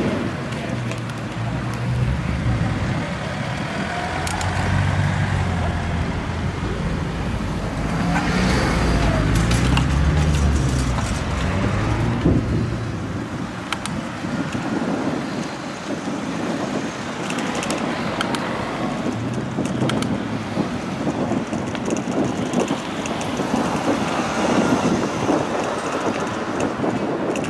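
Road traffic noise: a low rumble of passing motor vehicles that swells and fades, loudest about ten seconds in.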